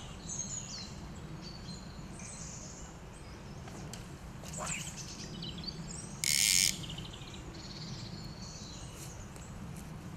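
Songbirds chirping and singing repeatedly over a steady low rumble of background noise, with a brief loud rasping hiss about six seconds in lasting about half a second.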